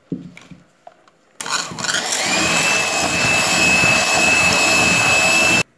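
Electric hand mixer beating whipped cream with melted chocolate. The motor starts about a second and a half in, its whine climbing briefly as it comes up to speed and then holding steady, and it stops suddenly near the end.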